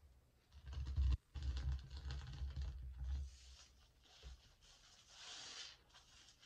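A soap-lathered natural sea sponge being worked and squeezed by hand in a sink of sudsy water: wet squishing and sloshing, heaviest in the first three seconds, then softer foamy squelches, the clearest about five seconds in.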